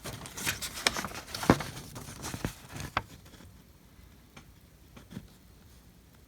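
Paper handling: an instruction booklet being opened and its pages turned, with sharp rustles and clicks for about three seconds, then only a few faint ticks.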